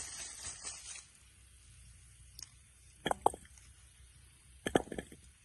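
A hand digging in soil and dry straw mulch, rustling and scraping for about a second, then two short sharp knocks, about three seconds in and again near the end.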